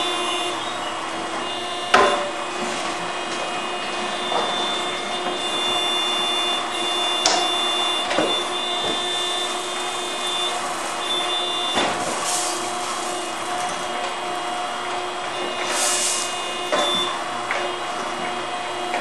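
Electric motor and hydraulic pump of a Scorpion 900 mini excavator running with a steady whine as the boom and bucket work, with a few sharp knocks and scrapes of the bucket in the dirt.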